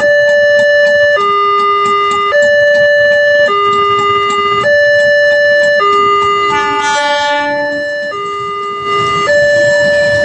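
Electronic warning siren of a railway level-crossing barrier sounding, switching back and forth between a high and a low tone, each held a little over a second. A second, different tone briefly overlaps it about seven seconds in.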